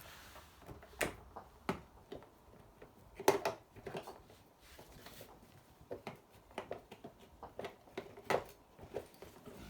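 Scattered sharp clicks and knocks from handling an unplugged angle grinder and its cutting disc, the loudest about three seconds in.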